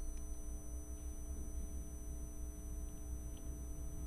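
Steady low electrical hum with faint steady whining tones above it, and a few faint scratches of a marker writing on a whiteboard.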